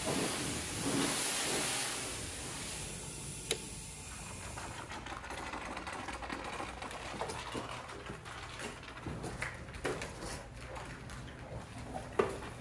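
Car-wash pressure wand spraying the truck with a steady hiss that fades out over the first few seconds, with a sharp click about three and a half seconds in. Then a soap-foaming brush scrubs the truck's side in a run of short, irregular scratchy swishes.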